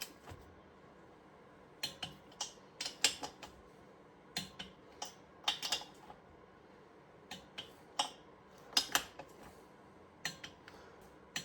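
Irregular sharp metallic clicks and clinks in small clusters: hand tools and small engine parts being handled and set down during reassembly of a Moto Guzzi cylinder head.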